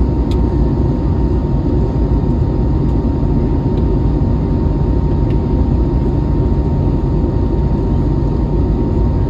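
Steady cabin noise inside an Airbus A321neo: a deep, even rumble of engines and airflow with a steady high whine.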